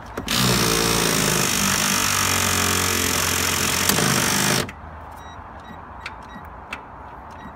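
Power ratchet motor running in one steady burst of about four seconds, then cutting off abruptly, as it spins a bolt on the starter motor at the back of the engine. A few faint clicks follow.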